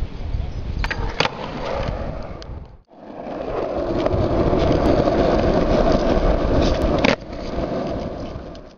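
Skateboard wheels rolling on asphalt, a steady rumbling hiss, with a few sharp clacks of the board's tail and deck. The sound cuts out abruptly about three seconds in and resumes at once.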